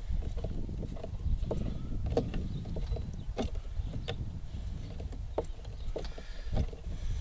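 Scattered light clicks and ticks of fingers and small parts as a ball link is worked loose on a servo push rod, over a steady low rumble.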